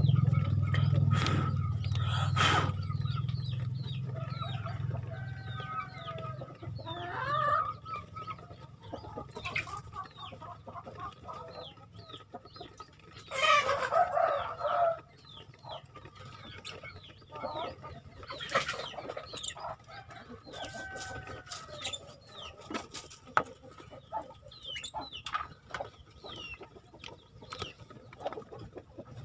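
Chickens clucking, with many short high chirps throughout and one louder drawn-out call about 13 seconds in. A low hum at the start fades out over the first few seconds.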